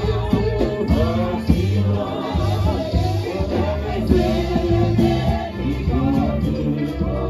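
Kompa-style gospel music: several singers on microphones sing together in a group over a steady bass line and beat.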